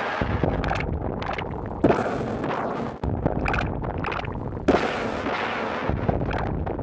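Loud, dense rumbling with heavy booms, one about two seconds in and another near five seconds.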